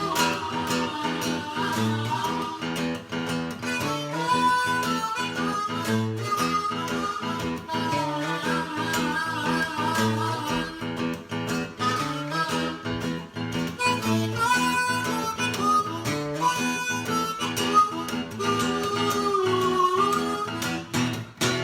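Harmonica playing an instrumental solo over guitar accompaniment in a blues-rock song, with no singing.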